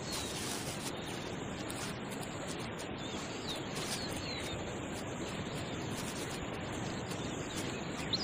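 Steady outdoor ambience, an even hiss, with a few faint, short, falling bird chirps scattered through it.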